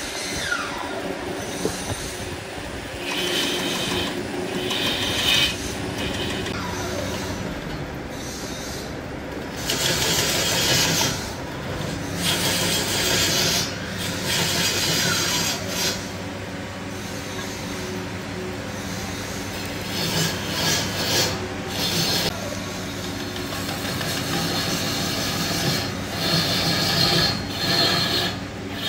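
Large wood lathe spinning a big log while a long hand-held turning tool cuts into the wood. The cutting noise rises in bursts of a few seconds and falls back, over the steady hum of the running lathe.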